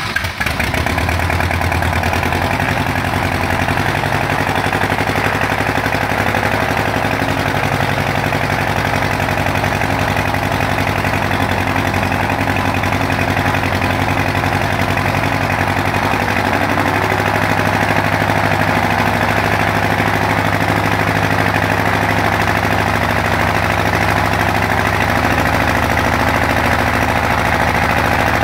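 Continental O-200 four-cylinder aircraft engine running at low rpm just after starting, propeller turning; it runs unevenly and gets a little louder about midway. On this first start after overhaul the engine ran very rough, with cylinder 3 misfiring from swapped ignition leads and faulty ignition harnesses.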